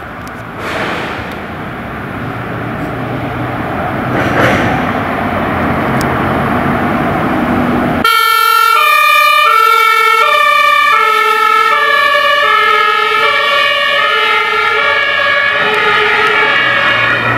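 Road and traffic noise, growing louder, then an abrupt switch about eight seconds in to a German two-tone emergency siren (Martinshorn) on an emergency doctor's vehicle, alternating between a high and a low tone and drifting slightly lower in pitch.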